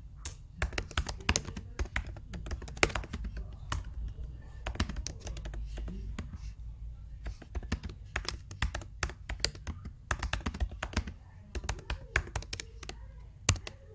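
Typing on a computer keyboard: quick, irregular key clicks as a sentence is typed out, in runs broken by short pauses.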